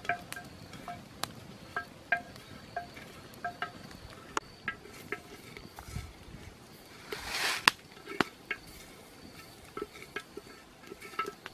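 Wood fire crackling under a clay cooking pot, with scattered sharp snaps and pops and a brief hiss that ends in the loudest snap about seven and a half seconds in. A short chirp repeats faintly in the background, about twice a second.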